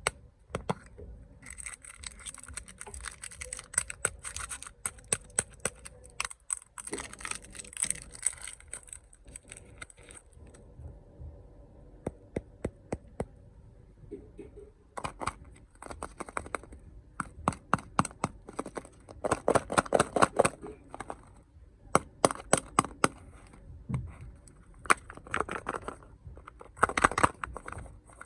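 Snack packaging handled close up: plastic wrappers crinkling and tearing, mixed with many sharp clicks and taps.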